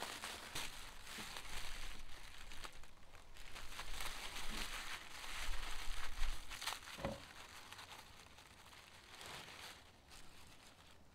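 Honeycomb kraft-paper packing wrap and tissue paper being pulled apart and crumpled by hand: irregular crinkling and tearing, dying down to a softer rustle in the last few seconds.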